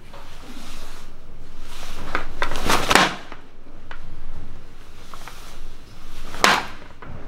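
Bare-fist punches landing on a makiwara, a straw-wrapped wooden striking post: two hard blows about three and a half seconds apart, with lighter knocks just before the first.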